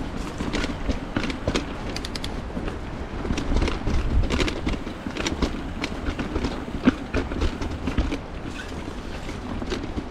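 Mountain bike rolling over a rocky trail, rattling with many sharp clicks and knocks over a low rumble.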